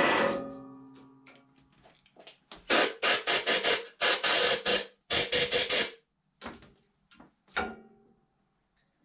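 Wood lathe winding down after being switched off. Then a compressed-air blow gun fires a quick run of about eight short, loud hissing blasts, blowing the dust off the turned wood, followed by two softer puffs.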